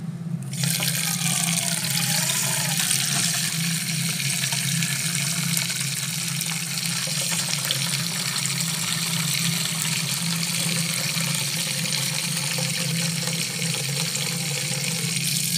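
A water tap running steadily, filling a container with water; the flow starts abruptly about half a second in.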